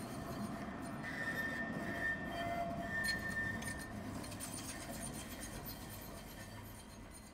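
Alstom Citadis tram passing close by on steel rails, its running gear rumbling, with brief high wheel squeals from the curving track about one and three seconds in. It grows quieter toward the end as it moves away.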